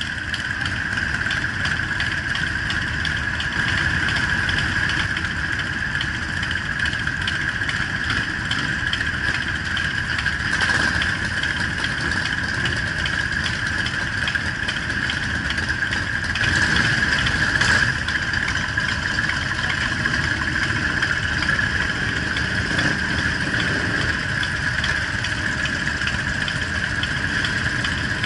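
Engines of a large pack of cruiser and touring motorcycles idling and running at low speed in a steady, continuous rumble, swelling a little now and then as bikes pull forward.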